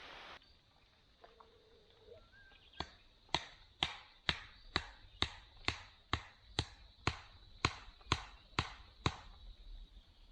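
Chopping: fourteen sharp, evenly paced strikes, about two a second, each with a short ring, starting about three seconds in and stopping about a second before the end.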